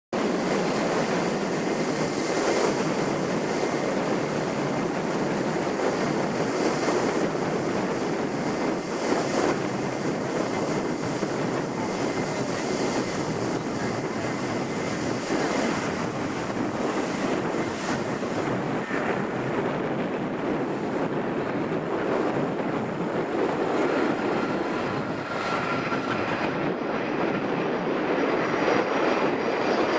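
Jet engines of a Boeing 767-300ER airliner, a steady rushing noise with a faint high whine through it.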